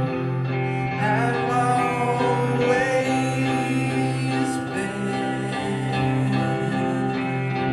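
Emo rock band playing live: electric guitars ringing out sustained chords over bass, with a voice singing over them.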